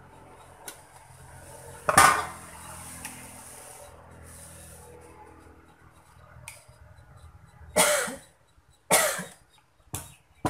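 A man coughing: one loud cough about two seconds in, then three more in quick succession over the last three seconds.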